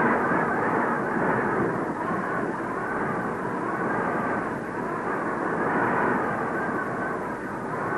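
Blizzard wind blowing hard, a continuous rushing that swells and eases in gusts.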